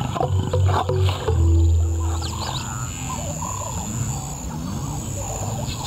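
Male lion growling in three low, rumbling bursts over the first two and a half seconds, with background music.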